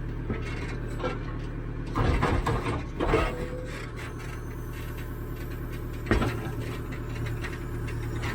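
Caterpillar 428E backhoe loader's diesel engine running steadily, with bursts of scraping and clanking from the digging work about two to three seconds in and a single knock about six seconds in.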